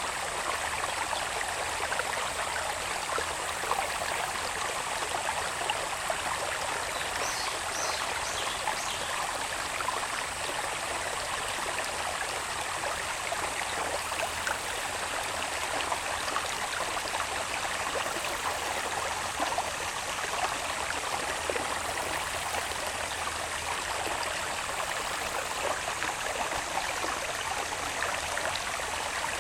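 Small irrigation channel of water babbling steadily, with a thin steady high insect trill above it. A few brief high chirps come between about seven and nine seconds in.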